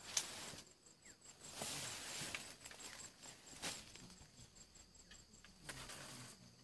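Rustling and crackling outdoors, with sharp snaps at the start and about three and a half seconds in, over a faint high-pitched chirping that pulses about four times a second.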